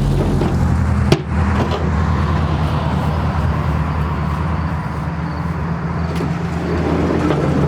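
A road vehicle's engine running steadily on the street outside, a low even hum, with one sharp knock about a second in from something handled in the room.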